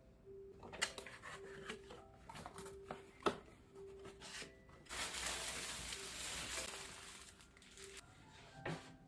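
Packaging being handled while a robot vacuum is unboxed: scattered clicks and knocks, then about two seconds of rustling or scraping past the middle.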